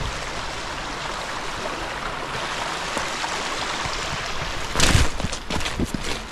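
Shallow creek water running steadily over stones. About five seconds in, footsteps crunch and clack on loose cobbles, the loudest moment, followed by a few lighter stone clicks.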